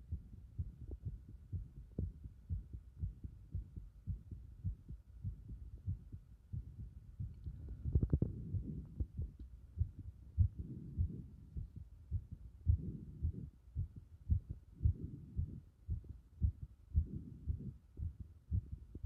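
A person's heartbeat picked up by a microphone pressed against the chest: a steady run of low, dull thumps. About eight seconds in there is a brief, louder, hissier noise.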